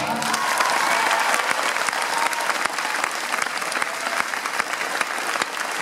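Audience applauding; the music has just stopped.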